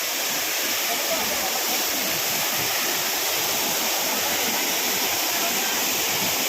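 Waterfall rushing: a steady, loud, unbroken roar of falling water.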